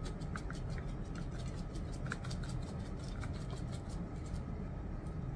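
Small glass shaker of grated parmesan being shaken repeatedly: a steady run of quick, light ticks and rattles.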